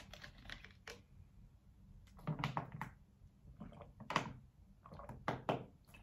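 A few small clicks as the cap of a glass water bottle is twisted open, then several swallowing gulps from the bottle.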